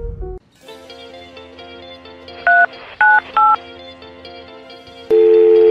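Three short touch-tone keypad beeps as 125 is dialed on a smartphone, over a soft music bed. About five seconds in, a loud steady two-note telephone tone starts.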